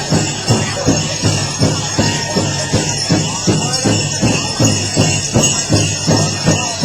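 Powwow drum group beating a large shared drum in a steady beat, a little under three strikes a second, with metal jingling over it.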